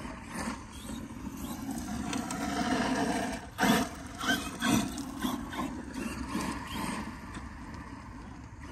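A brushless 6S RC monster truck driving on loose gravel: its motor running and its tyres scrabbling over stones. There are a few louder crunches and sprays of gravel about three and a half to five seconds in.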